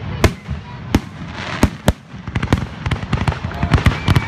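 Aerial fireworks shells bursting in a string of sharp bangs, spaced out at first and then, from about two seconds in, packed into a rapid run of crackling pops.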